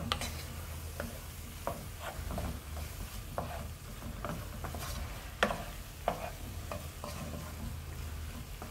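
Wooden spoon stirring and scraping a ground-beef and breadcrumb filling around a nonstick frying pan, with irregular knocks of the spoon against the pan, the sharpest about five and a half seconds in, over a low sizzle from the pan.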